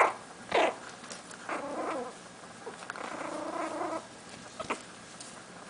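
Yorkshire terrier puppies yipping and whining: two sharp yips at the start, longer drawn-out whines in the middle, and one more short yip near the end.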